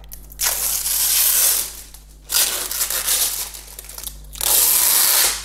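Protective plastic film being peeled off the glossy plastic top of a robot vacuum, in three long pulls of a second or so each with short pauses between.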